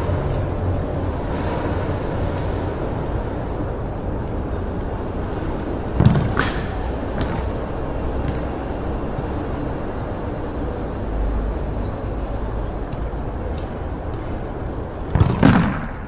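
A football struck hard and slamming against a concrete wall: one sharp smack about six seconds in and a double impact near the end, over a steady outdoor hum.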